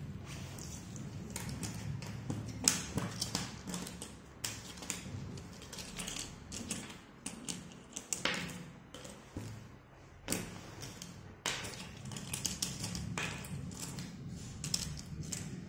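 Cardboard jigsaw puzzle pieces being handled and fitted together: irregular light taps and clicks, with a few sharper knocks.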